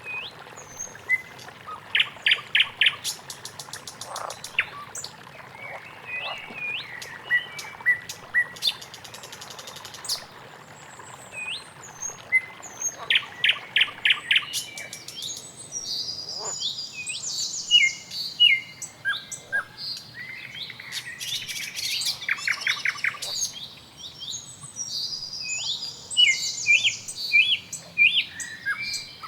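Many songbirds chirping and calling over one another, with quick rapid-fire trills and short whistled notes, growing busier about halfway through, over a faint steady background hiss.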